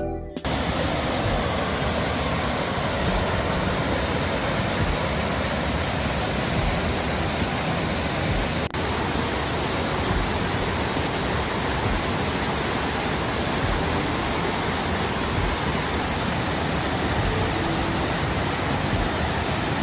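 Waterfall: a steady, unbroken rush of falling water, with a momentary break about nine seconds in.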